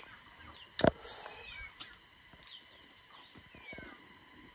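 Birds calling in the background, a series of short falling whistles, with one sharp click about a second in.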